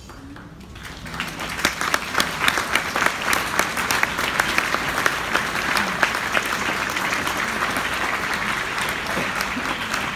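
Audience applause breaking out about a second in at the end of an orchestral performance, dense clapping that then holds steady.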